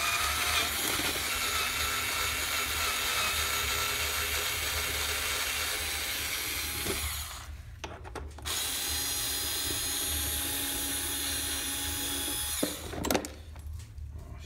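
Power drill with a socket bit running steadily for about seven seconds, stopping briefly, then running again for about four seconds as it backs out the air filter housing screws. A few short knocks near the end.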